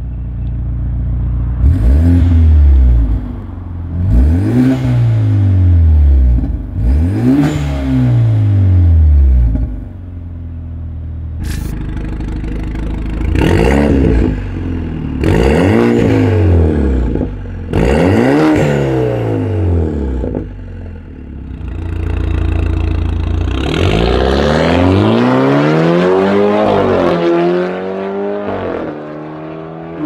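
BMW F10 520i engine free-revving while parked, heard through a de-catted Armytrix valvetronic exhaust with quad tips. It gives a series of sharp revs that rise and fall, first with the exhaust valves closed and then with them open, and ends in a longer rev near the end.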